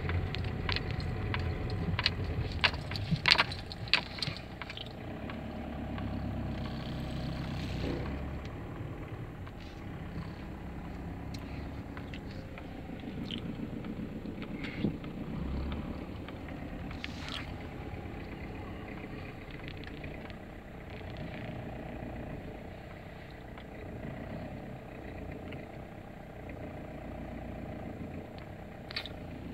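Car driving slowly, heard from inside the cabin: a steady low engine and road rumble. A cluster of sharp knocks and clicks comes in the first few seconds, with a few fainter ones later.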